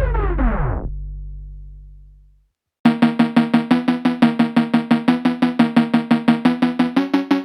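Background electronic music: one track ends with its pitch sliding down and its bass fading out. After a brief gap a new synth track starts with a fast pulsing beat, about five pulses a second.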